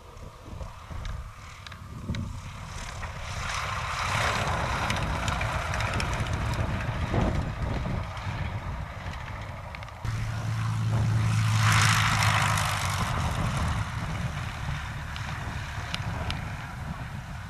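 Light-aircraft piston engines and propellers. One high-wing taildragger runs as it lands and rolls out. About ten seconds in, the sound changes abruptly to a second light aircraft whose engine runs with a steady note, loudest about twelve seconds in.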